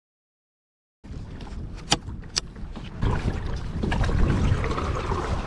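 About a second of silence, then wind buffeting the microphone and water splashing around a pedal-drive kayak under way, with two sharp clicks about half a second apart. The wind noise grows louder about three seconds in.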